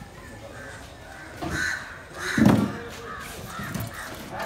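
Crows cawing a few short, harsh times, with one louder, lower sound about halfway through.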